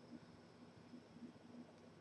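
Near silence: faint room tone with a steady high hiss-tone and a few soft, irregular low ticks.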